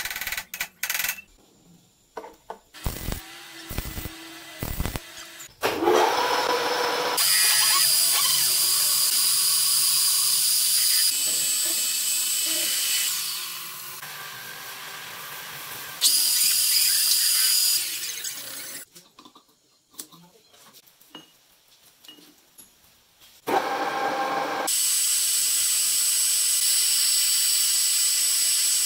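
Metal lathe turning and cutting a steel shaft: a steady hissing whine with high tones, in several stretches with pauses between. A few sharp metal knocks come first, while the shaft is fitted into the chuck.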